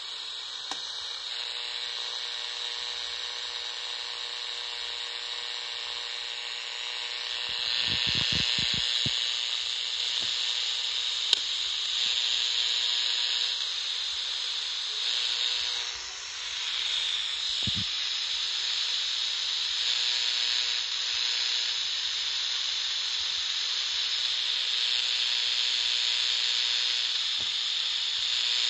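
Kaito KA-228 portable radio's speaker putting out a steady buzzing static: radio-frequency interference, which the owner suspects comes from the house wiring. The buzz grows louder about eight seconds in and dips briefly around sixteen seconds.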